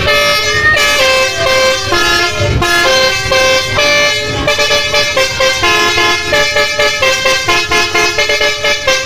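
Indonesian bus 'telolet' horn, a multi-tone air horn, playing a fast melody: chords of several horn tones stepping from note to note every fraction of a second, without a pause.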